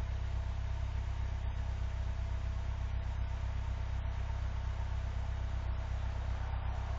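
Vehicle engine idling steadily, warming up after a hard, long-cranking cold start in sub-zero cold.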